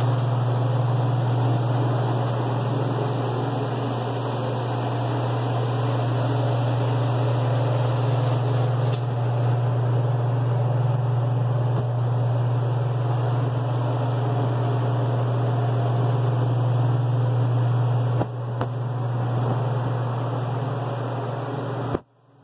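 Refrigeration fans of a walk-in flower cooler running: a steady low hum with an even whooshing hiss, which cuts off suddenly near the end.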